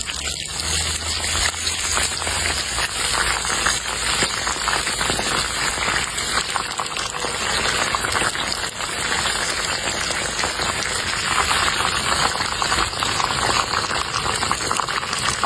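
Food cooking over high heat, sizzling steadily with dense small crackles.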